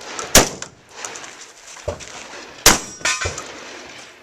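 Shotgun shots at steel targets: two loud, sharp reports, each with a metallic clang and ring, at about half a second and near three seconds in, and fainter knocks between and after them.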